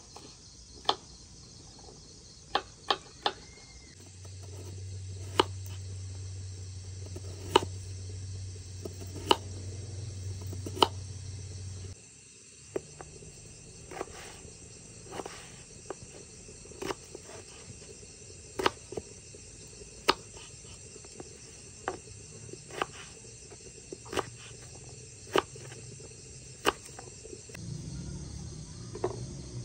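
Small kitchen knife cutting raw potatoes on a wooden chopping board: sharp, single knocks each time the blade goes through and hits the board, roughly one every second or two, unevenly spaced.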